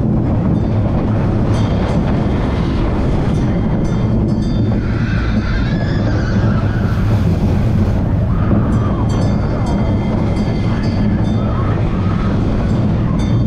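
Vekoma mine train roller coaster running along its steel track at speed, a loud steady rumble from the wheels with scattered rattling clicks.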